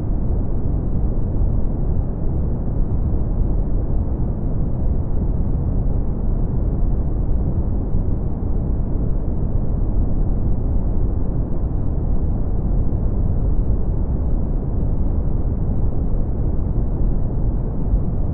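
Brown noise: a steady, even, deep rushing noise with almost no treble, never changing.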